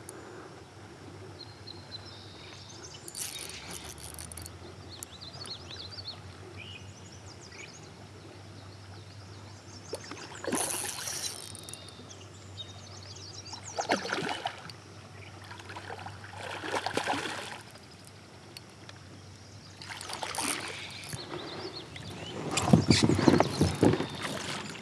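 A hooked smallmouth bass splashing at the surface of a river in a series of short bursts. The loudest comes near the end, as the fish is brought in close to the kayak.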